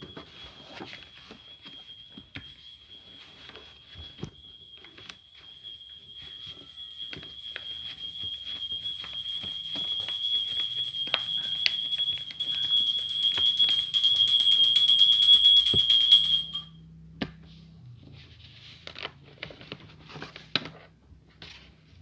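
Sheet of paper being folded and creased by hand, with crisp crackles and taps. Under it runs a steady high-pitched tone that grows gradually louder and is the loudest sound, then cuts off suddenly about three-quarters of the way through.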